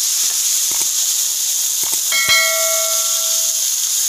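Squid sizzling in hot oil with sautéed garlic and onion as it is poured into a frying pan: a steady loud hiss. There are a few soft knocks, and about two seconds in a metallic clank rings briefly.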